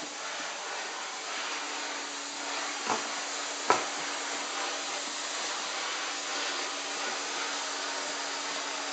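Vacuum cleaner running steadily with a hum and a hiss as its wand and brush attachment are run over a dog's coat. Two short knocks come about three and three and a half seconds in, the second the louder.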